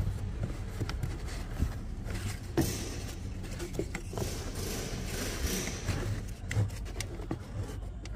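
Cabin air filter being pushed into its plastic housing behind the glovebox: scraping and rustling as the filter slides in, with scattered clicks and knocks of plastic, over a steady low hum.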